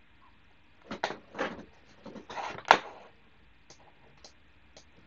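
Desk handling noises at a computer: a few short scrapes and knocks, the loudest a sharp click about two and a half seconds in, then single light mouse clicks about half a second apart.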